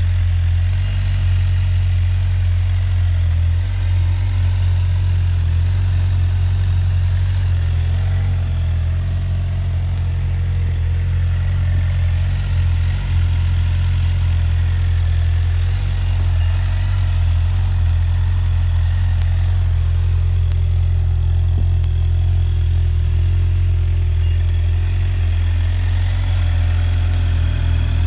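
2014 Suzuki GSX-R750's 750 cc inline-four engine idling steadily.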